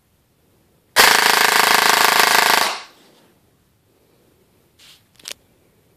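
Open airsoft gearbox with SHS 12:1 high-speed gears and a high-torque motor, powered by a fully charged 11.1 V LiPo, dry-firing one full-auto burst of rapid cycling for nearly two seconds. The burst trails off as the motor spins down, and two small clicks follow near the end.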